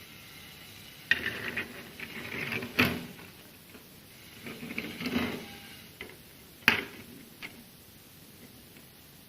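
Irregular clatter of hard objects being handled: a few short rustling rattles and two sharp clicks a few seconds apart.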